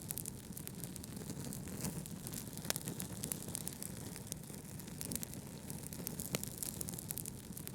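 Wood fire crackling steadily in a fireplace, with a few sharper pops, over a steady low brown-noise hiss.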